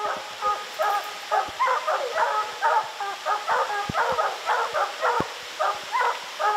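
A pack of hunting hounds barking over one another in quick succession, a few barks a second. This is the tree bark of hounds holding a black bear up a tree.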